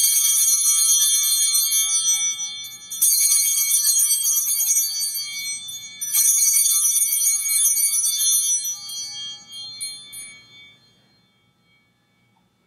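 Altar bells rung three times, each a bright multi-toned ring that fades over about three seconds, the last dying away about eleven seconds in. They mark the elevation of the chalice at the consecration of the Mass.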